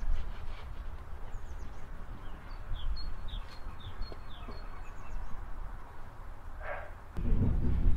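Outdoor ambience with a steady low rumble and a small bird giving a quick series of short, falling chirps in the middle. About seven seconds in, a louder low rumble sets in suddenly.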